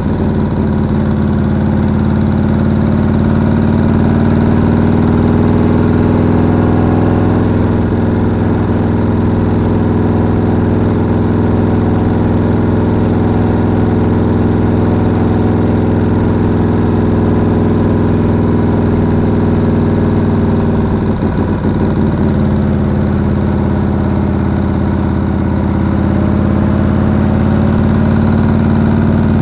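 Chopper-style motorcycle engine running steadily while cruising, heard from on the bike, with a brief unsteadiness and dip in level about two-thirds of the way through.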